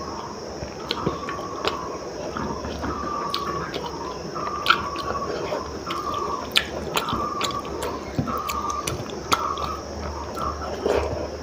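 Close-miked eating: wet chewing and lip-smacking clicks from a mouthful of khichdi, with fingers mixing soft rice in a steel bowl. A short, even tone repeats about once a second in the background.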